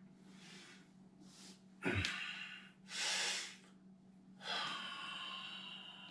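A man breathing hard in and out in a series of long breaths as he moves through a tai chi warm-up, with a sharp click about two seconds in.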